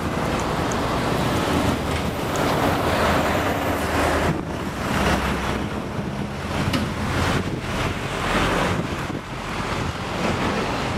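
Wind buffeting the microphone in uneven gusts, over a steady low engine rumble.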